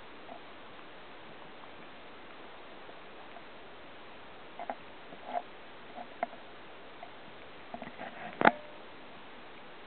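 Steady faint hiss with a few scattered light clicks and taps, and one sharper knock about eight and a half seconds in.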